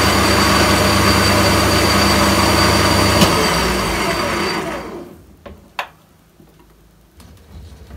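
Metal lathe running steadily with its four-jaw chuck spinning, then switched off about three seconds in and winding down to a stop by about five seconds. A few light clicks follow.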